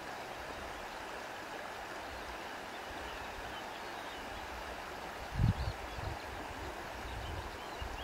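Steady rushing of flowing water, with faint high bird chirps and a brief low rumble about five and a half seconds in.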